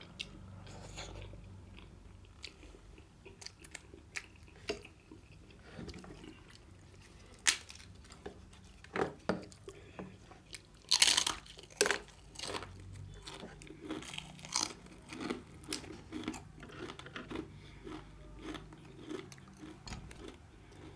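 Close-miked chewing and wet mouth smacks of someone eating steamed momo dumplings, irregular, with a louder cluster of smacks and bites in the middle.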